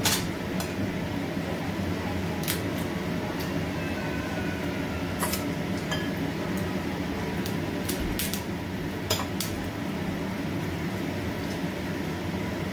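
Scattered sharp clicks and cracks, about a dozen, as cooked crab shell is pulled apart by hand and utensils touch plates, over a steady hum.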